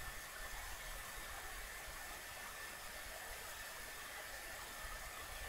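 Faint steady hiss of background noise with a thin, high, steady tone, and no distinct sounds.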